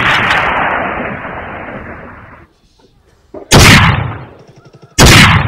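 Loud gunshots. The echo of one shot dies away over the first two seconds, then two more sharp bangs come about a second and a half apart, each trailing off.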